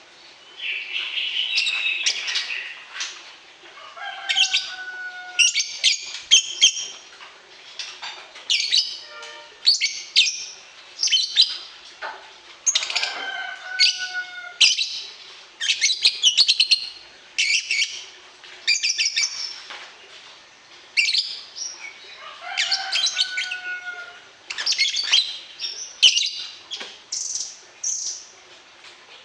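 Birdsong played as a training sound for a latbet: a busy run of sharp, high chirps and trills repeating every second or so, with a few short, lower, slightly falling whistles mixed in.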